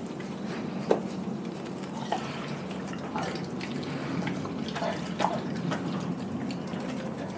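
A Doberman chewing and tearing a whole raw chicken close to the microphone: wet smacking and squelching of raw meat, broken by a few sharp cracks, the loudest about a second in and again around five seconds in.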